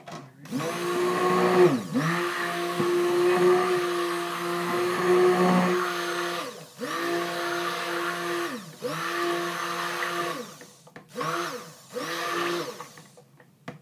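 Hand-held stick blender whirring in raw cold-process soap batter, pulsed on and off about six times. The first run is the longest, about six seconds, and the motor's whine winds up and down at each start and stop. It is mixing white colorant into the batter.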